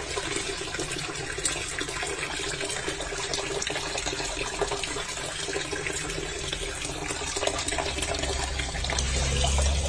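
Water running steadily from a tap and splashing into a tub of soapy water, with a few small splashes where a cat's paws break the stream.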